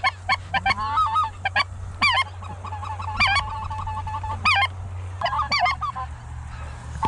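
Geese honking: many short, overlapping honks that rise and fall in pitch, with one longer held note in the middle.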